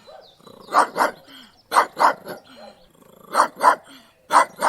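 A dog barking in quick pairs, two sharp barks close together and then a short pause, about eight barks in all.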